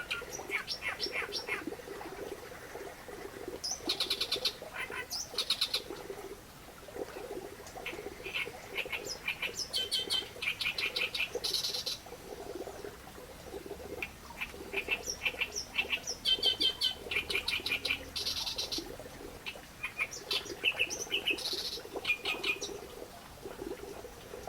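Reed warbler singing: phrase after phrase of rapid, repeated chattering notes, with short pauses between phrases.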